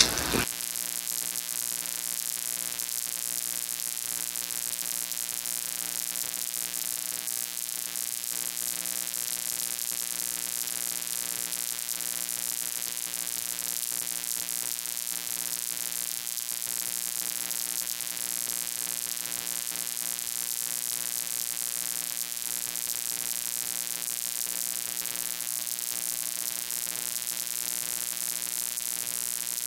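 Steady electrical hum with a constant hiss, unchanging throughout.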